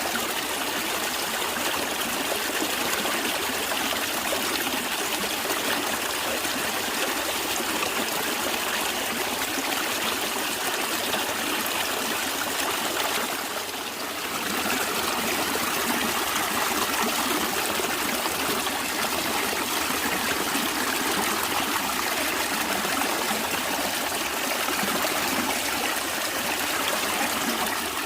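Stream water running steadily with a trickling sound, dipping briefly in loudness about halfway through.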